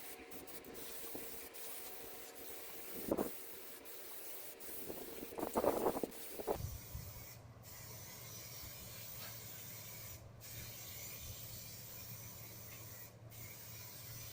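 Rattle-can aerosol spray paint hissing in steady passes, broken by short pauses about every three seconds, after a few handling knocks in the first half.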